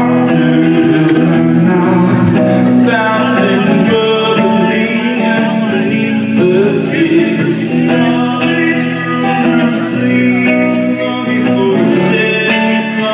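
A solo singer performing a song live: sung vocals over steady instrumental accompaniment.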